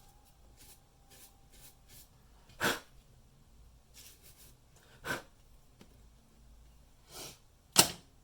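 Several short, sharp clicks and snaps spaced a couple of seconds apart, the loudest near the end: handling noise from taking apart a ThinkPad W520 laptop.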